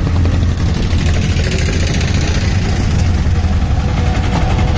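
Auto-rickshaw engine running with a steady low drone, heard from inside the open cabin while riding in street traffic.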